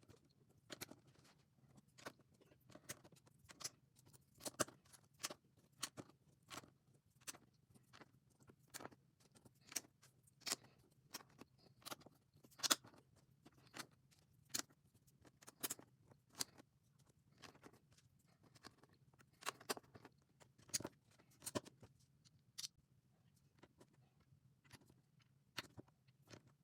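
LEGO bricks being handled and pressed together: irregular sharp plastic clicks and small rattles, about one or two a second, over a faint low hum.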